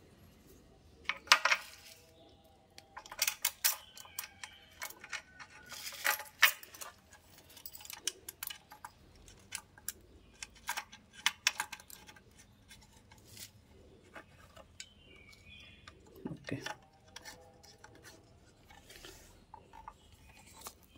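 Small metal and plastic parts of a motorcycle mirror and its indicator clicking and clinking as they are handled and fitted together by hand. The clicks are irregular, with a few sharper clacks about a second in, around four and six seconds, and again near sixteen seconds.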